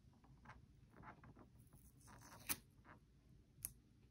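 Faint crackle of washi tape being pressed and smoothed onto a clear quilting ruler by fingertips, with two small sharp ticks about two and a half and three and a half seconds in.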